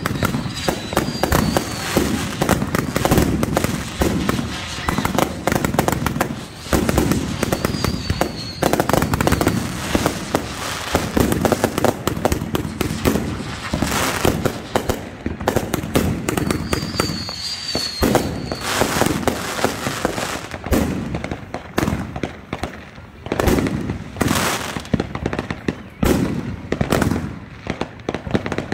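Consumer firework cakes firing a dense, unbroken barrage of bangs and crackling from aerial bursts, with a few short whistles a couple of times.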